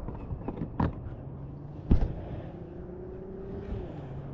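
Two sharp knocks in a boat about a second apart, the second louder, as a fish is taken off the hook. A steady low motor hum runs underneath, with a faint tone that slides slightly upward and then drops away near the end.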